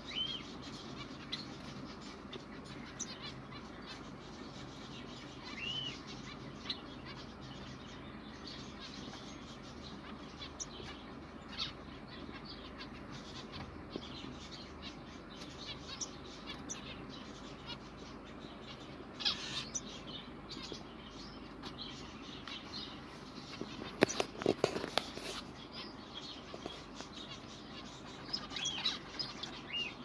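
A flock of caged finches, zebra finches among them, giving scattered short chirps and calls. About three-quarters of the way through there is a brief burst of sharp knocks and fluttering, the loudest thing heard.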